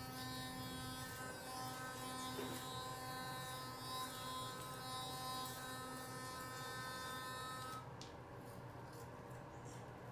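Child's electric toothbrush buzzing steadily while brushing teeth, then switching off about eight seconds in.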